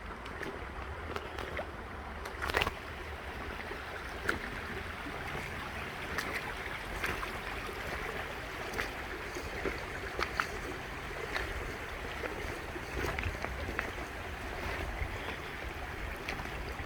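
River water flowing steadily, with a low wind rumble on the microphone and scattered small clicks.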